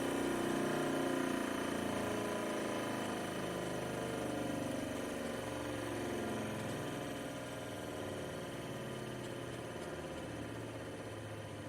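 Motor of an electric grinder tool running steadily with a humming whine, its pitch sagging slightly over the first couple of seconds and the sound slowly growing quieter.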